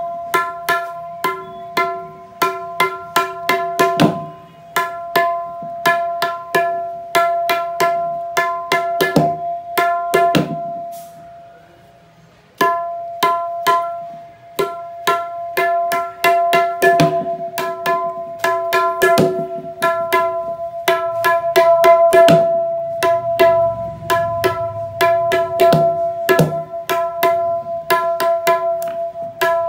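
Dayan, the right-hand tabla drum, played with quick finger strokes. Every stroke rings on the same clear pitch, the drum tuned to E. The strokes stop briefly a little before the middle, then resume.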